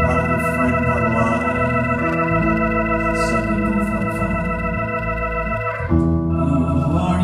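Instrumental keyboard music with an organ-like tone, playing sustained chords; the chord changes about six seconds in.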